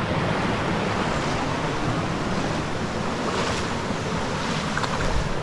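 River water flowing with a steady rushing noise.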